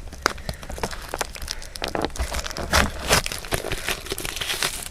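Plastic wrapping crinkling and rustling as it is handled and torn, with irregular small clicks and scrapes.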